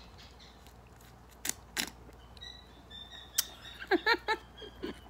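A metal straw and ice cubes clinking against a glass of iced coffee: a few sharp clinks, each leaving a brief glassy ring. About four seconds in comes a quick run of short, squeaky pitched sounds.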